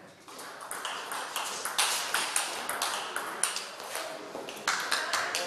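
Table tennis balls clicking off paddles and table in play: a quick, irregular run of sharp clicks, several a second, starting a moment in.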